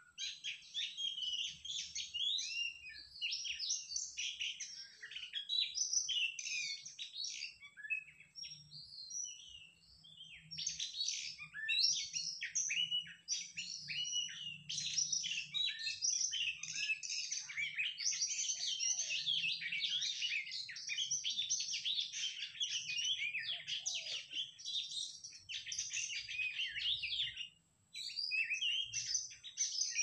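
Dense, continuous songbird chirping and warbling, many quick high notes tumbling over one another, with a brief break near the end.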